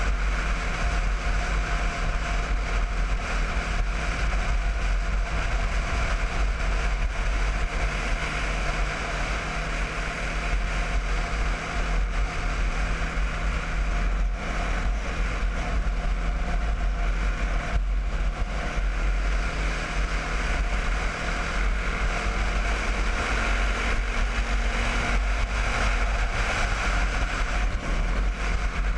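Sport quad's single-cylinder engine running steadily at cruising speed, heard from a camera mounted on the quad, with wind buffeting the microphone.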